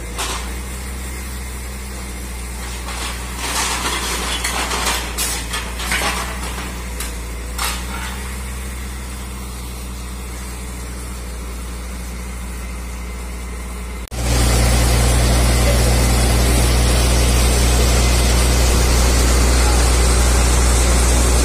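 Diesel truck engine running steadily to power a truck-mounted crane, with metal clanks and rattles as its orange-peel grab closes on and lifts steel scrap frames. About two-thirds through, the engine sound suddenly becomes much louder and stays steady.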